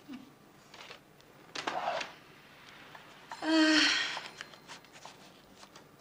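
A woman's brief wordless vocal sound, a short held "mm" or "oh", about three and a half seconds in. A soft rustle comes shortly before it, over quiet room tone.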